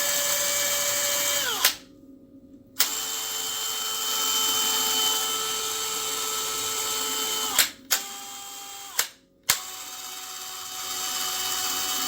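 Cordless hammer drill (DeWalt DCD996B) running with a steady motor whine. It cuts out about two seconds in and restarts at a different speed. It stops twice more near the end, each time briefly, and starts up again with a click.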